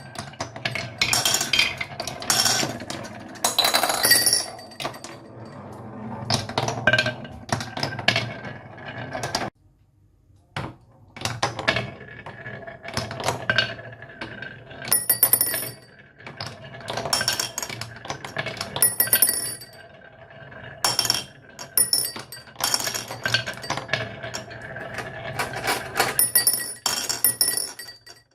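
Small toy cars clattering and clinking in irregular bursts along a HABA slope track, over a steady low hum. The sound cuts out briefly about ten seconds in.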